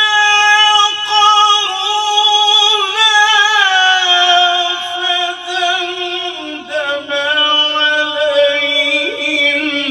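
A man's voice reciting the Quran in melodic tajweed style (tilawat), drawing one phrase out on long held, wavering notes. The pitch steps down about four seconds in and again about six and a half seconds in.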